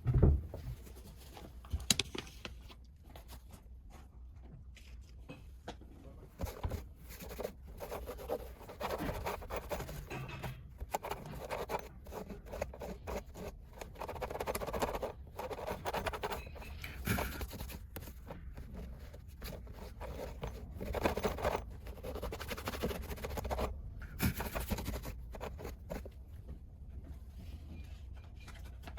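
Irregular scratching and scraping noises, coming in bursts of varying length, over a low steady hum.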